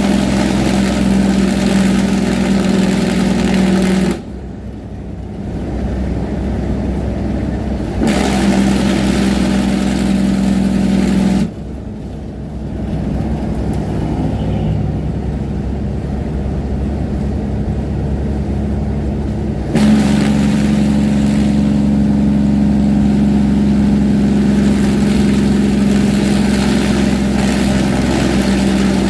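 Diesel semi truck's engine brake through a straight exhaust: a loud, deep, steady drone. It cuts out about four seconds in, comes back on for a few seconds, drops out again for about eight seconds, then comes back on for the last third. In between, the engine runs much quieter.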